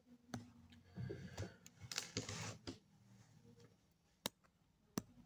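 Quiet room with several faint, sharp clicks scattered through the pause, and a soft rustle about two seconds in.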